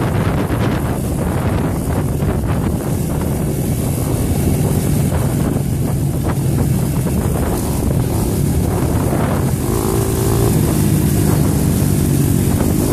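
Dirt bike engine running steadily at trail-riding speed, with wind rushing over the microphone. About ten seconds in, a second dirt bike's engine sounds close by.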